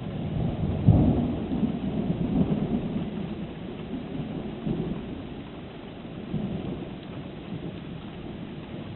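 Thunder: a sharp clap about a second in that rolls into a rumble lasting several seconds, with a smaller rumble near the end, over the steady hiss of rain.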